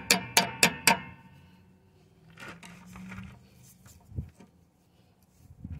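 Quick, light metal-on-metal taps, four in the first second, driving the cotter pin out of the castle nut on a tie rod end. After that come faint handling sounds and a single soft knock.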